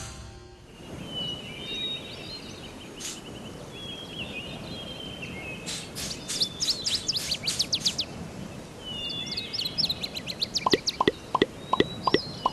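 Birds chirping and trilling over a faint outdoor background hiss, with quick runs of rapid down-sliding notes about six seconds in and again from about ten seconds.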